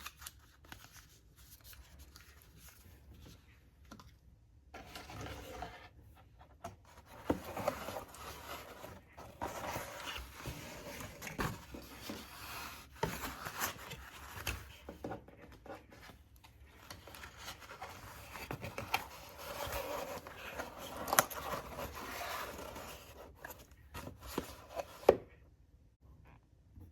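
Paper and card being handled: irregular rustling and scraping with a few sharp taps, starting about five seconds in and stopping near the end.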